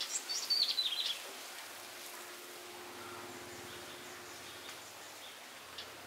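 A songbird gives a quick run of high chirps that fall in pitch during the first second. Steady outdoor background noise and a faint steady hum follow.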